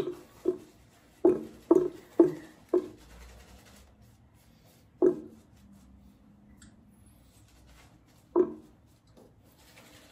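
A wet shave in progress: a shaving brush and razor rubbing on a lathered, stubbly face. Several short soft knocks fall in the first three seconds, and one more each about five and eight seconds in.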